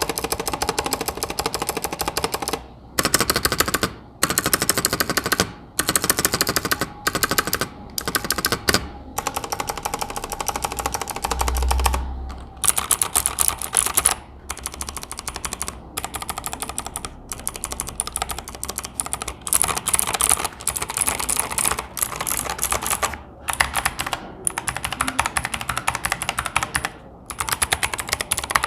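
Fast typing on an Asus ROG Strix Flare II Animate mechanical keyboard with ROG NX switches, a dense stream of key clacks. The clacks come in runs of a second or two, broken by short pauses.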